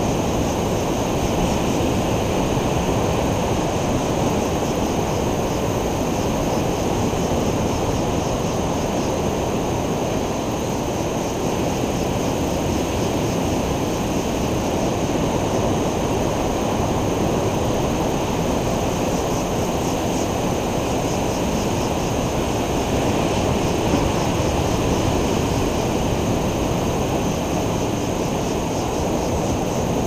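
Ocean surf breaking on a beach: a steady, unbroken rumble of waves with no single wave standing out.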